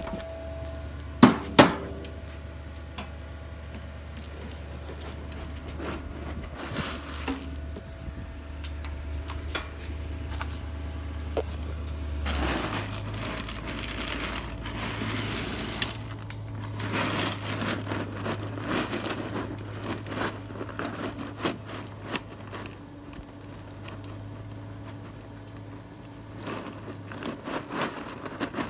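Weber SmokeFire pellet grill's motor running with a steady low hum that steps up slightly in pitch about twelve seconds in. Two sharp knocks come about a second and a half in, and scattered clicks and rustling, crackling handling noise follow.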